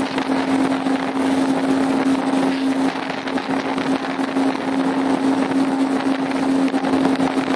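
A small motorboat's engine running at a steady, constant hum, under a rushing wash of wind and choppy water against the hull.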